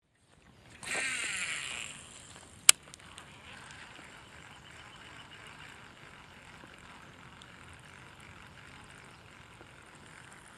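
A fishing cast: for about a second the rod swishes and line whirs off the reel. A single sharp reel click follows. Then comes a faint, steady, lightly ticking reel crank through a fast retrieve.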